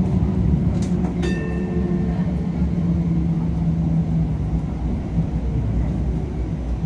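Running noise inside an MTR Light Rail Phase 3 light rail vehicle as it travels along the track: a steady rumble with a low hum that stops about four seconds in, and two sharp clicks about a second in.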